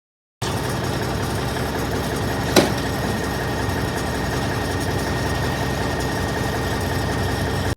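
A truck engine idling steadily, with one short sharp click about two and a half seconds in.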